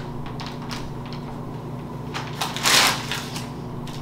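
Plastic cookie packaging crinkling and rustling as it is handled, with scattered small clicks and a louder crinkle nearly three seconds in.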